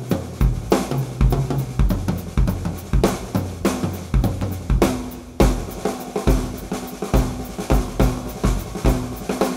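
1970s Pinguim drum kit played in a steady groove: thumps from a 26-inch Fischer bass drum, Ludwig Supraphonic snare hits and Paiste 505 cymbals, with the drums ringing on in pitch between strokes.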